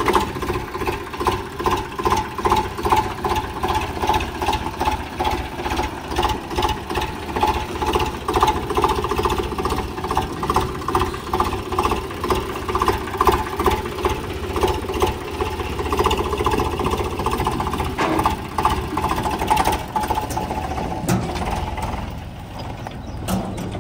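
Tractor diesel engine running close by with an even, rapid chugging beat, growing quieter near the end.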